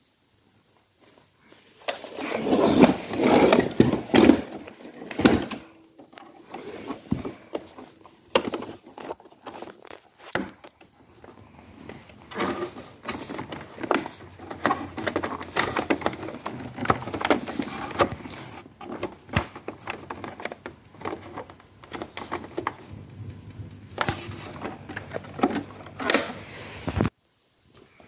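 iRobot Roomba 760 robot vacuum running: a steady low motor hum under irregular clicks and scrapes. A louder, busier stretch comes about two seconds in, and the sound cuts off abruptly near the end.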